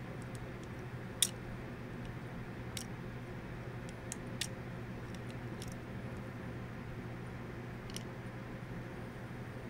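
Light, sharp clicks and ticks of small die-cast toy cars being handled and set down, about six in all with the sharpest about a second in, over a steady low hum.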